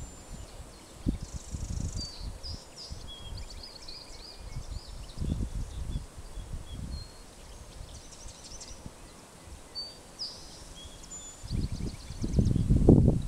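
Small birds chirping and twittering in many short, high calls, over gusts of wind rumbling on the microphone that grow stronger near the end.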